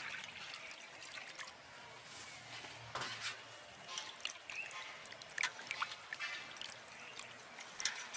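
Water poured from a jug into a steel bowl of cut boal fish at the start, then faint splashing, sloshing and dripping as hands rub and wash the fish pieces in the water, with small splashes every second or so.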